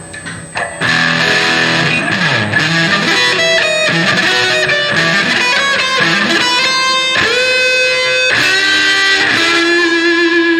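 Electric guitar, a Gibson Les Paul, played through an Electro-Harmonix Oceans 11 reverb pedal: a phrase of single notes starting about a second in, with a couple of notes bent upward in the second half, the reverb letting the notes ring on under each other.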